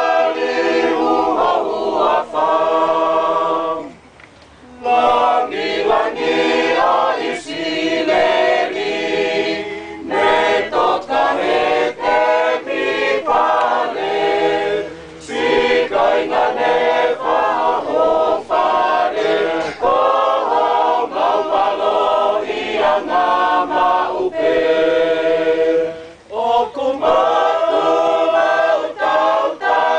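Choir of women's and men's voices singing unaccompanied in Tongan, in phrases with short breaks between them and a brief pause about four seconds in.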